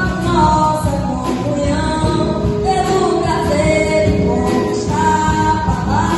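A woman singing a Christian worship song with full band accompaniment, holding long sustained notes.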